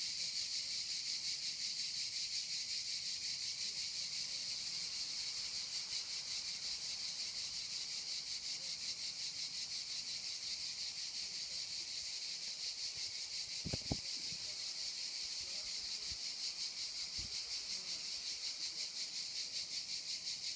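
Cicadas singing: a steady, fast-pulsing, high-pitched chorus. A brief knock a little past halfway.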